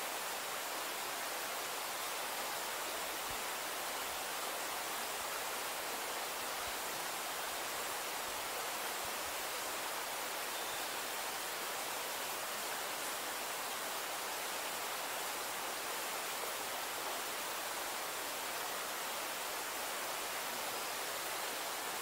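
Steady, even rushing noise with no distinct events: an unbroken outdoor hiss that neither rises nor falls.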